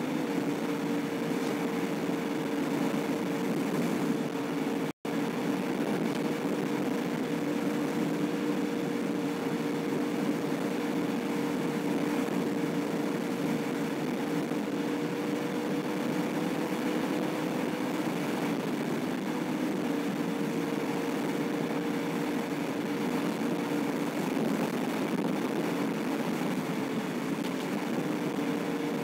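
Vehicle cruising at a steady highway speed, heard from inside the cabin: a constant engine hum over road and tyre noise. The sound cuts out for an instant about five seconds in.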